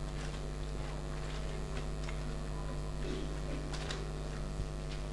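A pause in speech: steady low electrical mains hum, with a few faint, short clicks.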